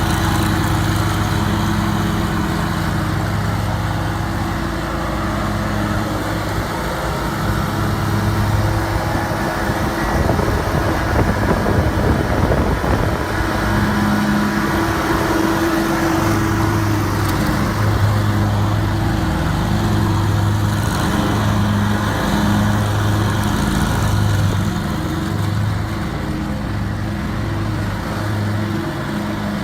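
Zero-turn riding lawn mower engine running steadily while mowing. Its low hum pulses on and off in the second half, with a rougher stretch near the middle.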